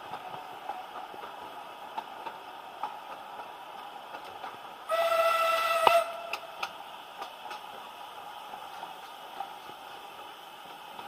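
Steam locomotive whistle blown once, about a second long, a steady single pitch over a hiss of steam, heard from a carriage of the narrow-gauge train. Around it is the carriage's steady running rumble with scattered light knocks.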